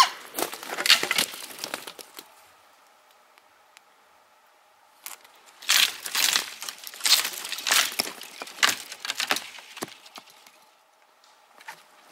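Footsteps crunching and snapping through dry forest litter and twigs, in two bouts of walking with a still pause of about three seconds between them.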